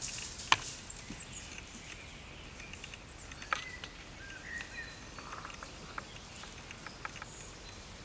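Horse stepping over dry leaf litter: scattered crackles and ticks, with a sharp snap about half a second in. A bird chirps briefly a few seconds in.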